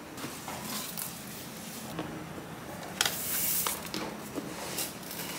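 Close-up handling of a MacBook Air and its cardboard box by hand: light clicks and taps of fingers on the aluminium body, with a brief rustling swish about three seconds in that is the loudest sound.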